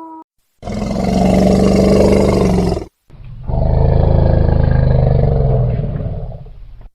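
A big cat roaring: two long, loud roars, the second a little longer, with a short break between them.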